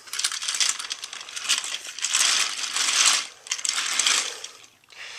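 Plastic TOMY toy freight trucks rattling and clicking along plastic track as the train runs past, a dense clatter of small plastic knocks that swells, peaks about two to three seconds in and dies away near the end.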